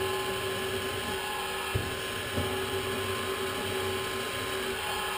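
Titan TM25V milling machine's spindle and 1000-watt motor running steadily, a 5 mm high-speed steel drill turning in its drill chuck, with a steady hum and whine. Two short clicks a little under two seconds in and about half a second later.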